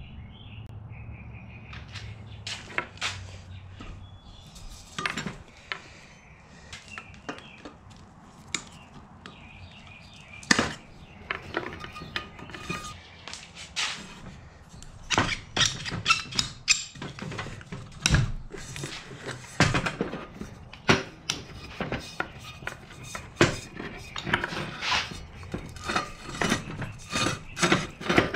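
Metal pipe fittings and a fire-extinguisher body being handled on a workbench: irregular clinks, knocks and thunks of metal parts, sparse at first and coming much more often from about ten seconds in.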